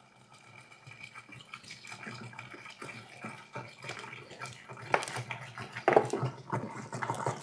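Water pouring from a tipped one-gallon plastic jug and splashing into a 7-gallon fermenter of malt-extract wort, with irregular glugs and splashes that build up about half a second in. This is the batch being topped up with its last gallons of water to churn the ingredients together.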